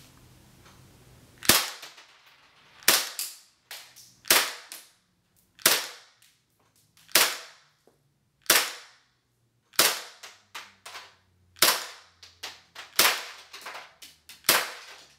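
A gas blowback airsoft pistol fired about ten times at a slow, steady pace, roughly one shot every second and a half, starting about a second and a half in. Each shot is a sharp crack with the slide's blowback, and some are followed by a fainter click.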